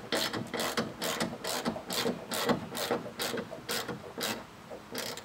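Hand ratchet clicking in short back-and-forth strokes, about two a second, as it tightens the bolts that hold a kayak landing gear mount. The strokes pause briefly before one last stroke near the end.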